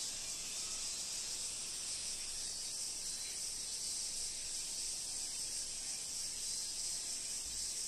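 A steady, high-pitched insect drone, like a chorus of summer insects, unchanging throughout, over a faint low rumble.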